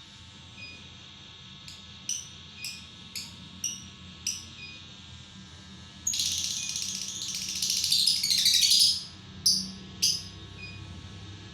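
Lovebird calling: a run of short, high-pitched chirps about every half second, then about three seconds of dense, rapid chattering, then two more sharp chirps near the end.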